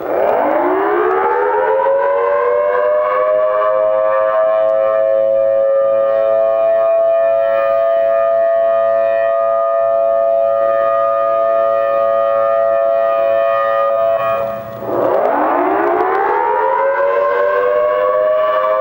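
Whelen WPS electronic outdoor warning siren sounding its Thunderbolt-style test tone, a loud wail of several tones together. It winds up quickly from low pitch and holds steady. About fourteen seconds in it briefly drops away and winds up again. Echoes off nearby buildings add a dissonant edge.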